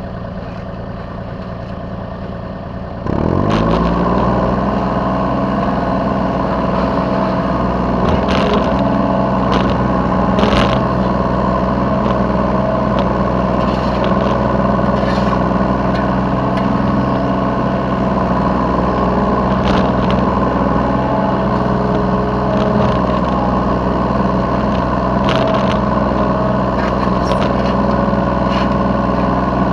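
Yanmar B3 Sigma mini excavator's diesel engine idling low, then throttled up about three seconds in with a quick rise in pitch, and running steadily at high revs. Several sharp metallic clanks are scattered through.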